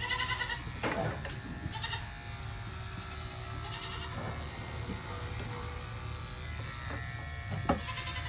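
Electric livestock clippers running steadily while shaving a Nigerian dwarf goat's coat, with a goat bleating once near the start.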